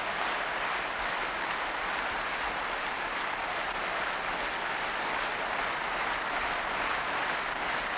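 Steady applause from an arena crowd, an even clapping noise with no pauses.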